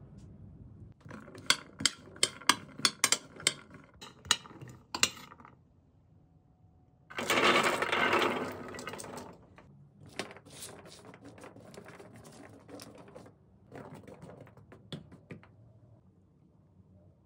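Chickpeas poured from a bowl onto a parchment-lined metal baking sheet: a dense rattling rush about seven seconds in, lasting about two seconds. Before it, a quick run of about eight sharp clicks and clinks; after it, scattered lighter clicks.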